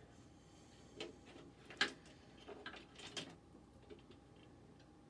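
A few faint, scattered clicks and taps of computer parts and cables being handled while a PC is assembled.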